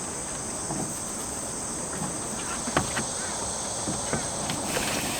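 Crickets chirring in a steady high-pitched drone, with a few scattered short clicks, the sharpest about halfway through.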